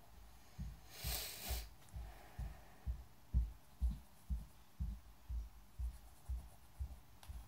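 Pencil drawing on a sketchbook on a wooden table: soft low thumps about twice a second as the strokes press through to the table, with one longer scratchy stroke about a second in.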